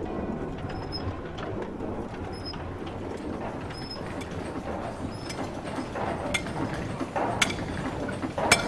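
Steady rumbling forge ambience with faint scattered chirps and small clicks, then three sharp strikes of a blacksmith's hammer on an anvil in the last few seconds.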